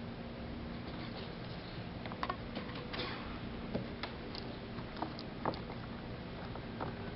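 Scattered light taps, clicks and rustles of paint tubes, rags and newspaper being handled on a work table, over a steady low hum of room noise.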